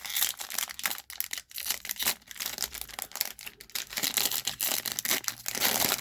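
A plastic trading-card pack wrapper being torn open and crinkled by hand, a steady run of crackling rustles that gets busier in the last couple of seconds.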